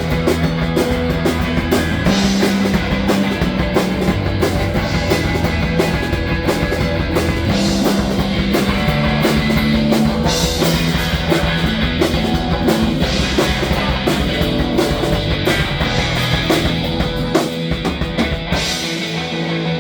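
Rock band playing loud and steady during a sound check: a drum kit hitting throughout, with held guitar notes underneath.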